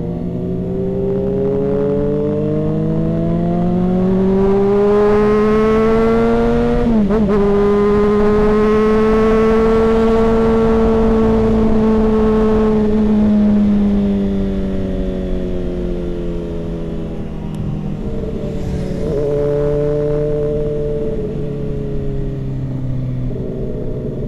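Motorcycle engine heard from the rider's seat, revving up steadily for several seconds, with a quick gear change about seven seconds in. It then holds steady, the revs fall away as the bike slows, and it settles into lower, even running near the end.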